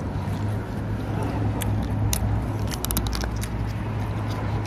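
Crunchy food being bitten and chewed close to the microphone: a run of short crisp crunches, thickest about three seconds in, over a steady low background hum.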